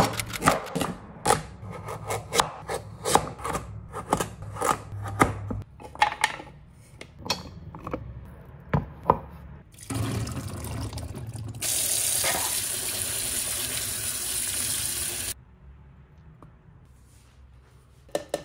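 Knife chopping carrots on a wooden cutting board: a quick run of knocks that thins out over the first several seconds. Then liquid pours from a can of chickpeas into a metal strainer in a stainless steel sink, and the tap runs hard for about four seconds before it is shut off abruptly.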